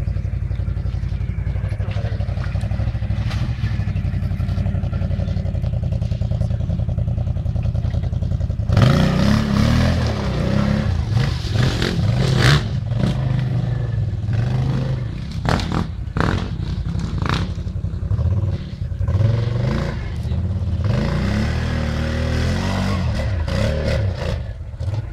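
Quad bike (ATV) engine running steadily at low revs, then from about nine seconds in revving up and down hard under load as it climbs a muddy slope, with some clattering.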